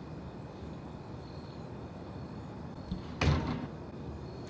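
A door closing once, a short scraping thud about three seconds in, over a steady faint background hiss.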